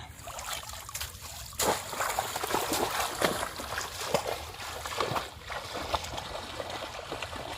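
Shallow water splashing and trickling in an irregular run of short splashes, which become louder about one and a half seconds in.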